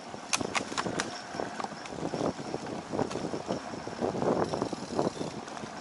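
Mountain bikes rolling over the planks of a wooden boardwalk: an irregular clatter of knocks as the tyres cross each board, with sharp clicks and rattles from the bikes.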